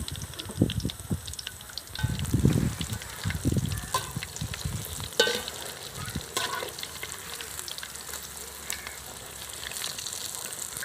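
Green papaya bajji deep-frying in hot oil, a steady sizzle, with low thuds in the first four seconds and scattered clinks of a utensil.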